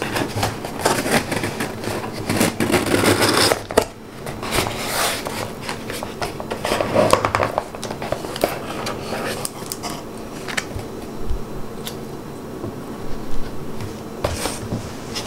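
Cardboard shipping box being opened by hand: the flaps are pulled open with a burst of crackling and scraping in the first few seconds. Then come scattered scrapes, clicks and light knocks as a plastic plant pot with a clear dome is lifted out of the box and set down on a wooden table.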